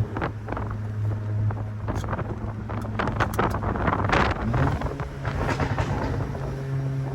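Audi S3's turbocharged 2.0-litre four-cylinder through a loud custom Rogue Performance valved exhaust, dropping off throttle after a rev and running at low revs, with scattered sharp crackles from the exhaust. About four and a half seconds in, the engine note rises slightly and holds steady.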